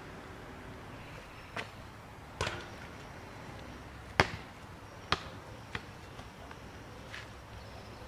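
A basketball shot landing: a couple of knocks against the hoop, then the ball bouncing on brick paving. The loudest bounce comes about four seconds in, followed by a few smaller single bounces.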